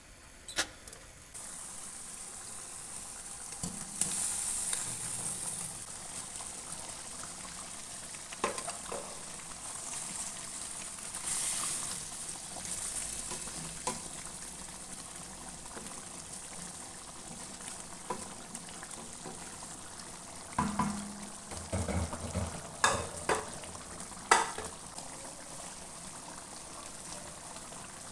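Masala curry gravy bubbling and sizzling in oil in an iron wok, a steady hiss that swells a couple of times as fried fish pieces go into it. A few sharp knocks against the pan, most of them clustered about 20 to 25 seconds in.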